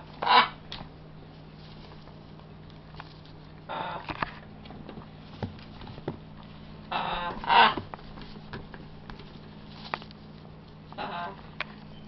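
Young macaws squawking: four harsh, raspy calls a few seconds apart, each lasting under a second.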